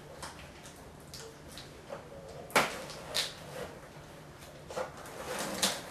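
Cardboard TV box being opened and handled: scattered scrapes and rustles of cardboard with a few sharp knocks, the loudest about two and a half seconds in.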